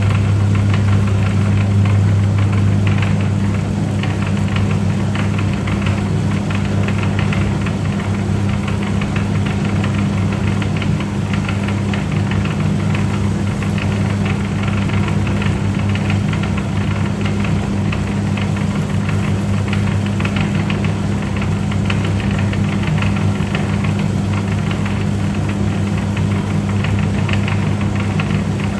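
Electric noodle cutting machine running steadily, its motor humming while the cutting rollers make a fast, continuous clatter.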